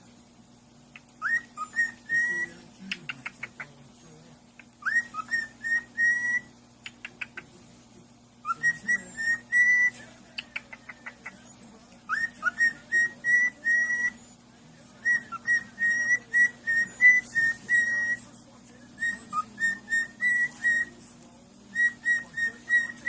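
A parrot whistling: repeated phrases of short, clear notes at one steady pitch, each phrase opening with a quick upward slide, broken by bursts of rapid chirps.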